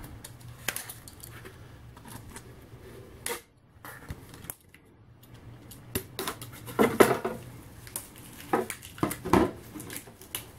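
Small knife blade cutting through packing tape and the cardboard of a taped comic-book mailer: scraping and clicking as the blade slits the edge. A short lull a little over three seconds in, then louder scrapes and cardboard rustling from about six seconds in.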